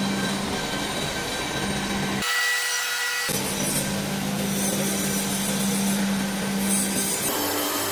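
Steady workshop machinery noise with a constant low hum. The sound changes abruptly about two seconds in, again a second later, and once more near the end.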